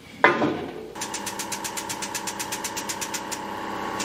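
A short clatter about a quarter second in, then a hydraulic press's pump running steadily with a rapid, even pulsing (about eight pulses a second) as it pushes the keyway broach through the pulley bore on the second pass.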